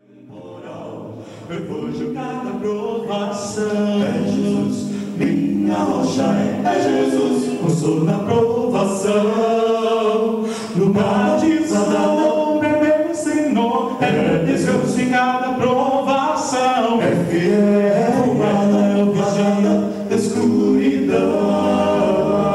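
Male vocal quartet singing in close harmony into microphones, unaccompanied, with held low notes under the upper voices. The singing comes in over the first two seconds.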